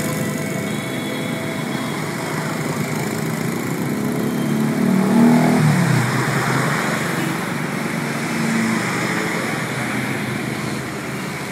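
Road traffic from motorcycles and scooters in a convoy, with buses and a truck going by. About five seconds in, one passing engine gets louder and its pitch drops as it goes past.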